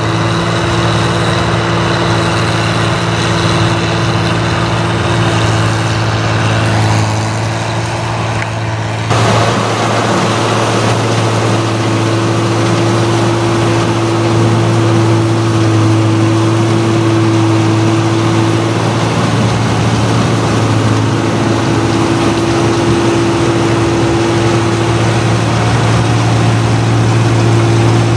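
New Holland Clayson 1545 S combine harvester running steadily while harvesting rice, its diesel engine and threshing machinery giving a loud, constant drone with a steady hum. The sound shifts abruptly about nine seconds in.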